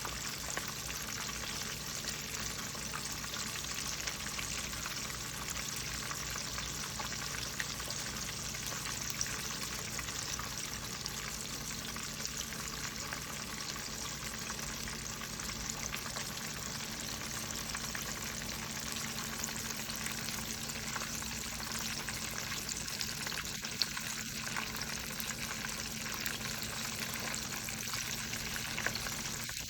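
Fish frying in hot oil: a steady sizzle with small crackles and pops.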